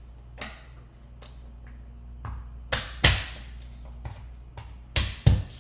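Garlic cloves being smashed with the flat of a knife blade on a cutting board: several sharp knocks and slaps, the two loudest, with a deep thud, about three seconds in and near the end.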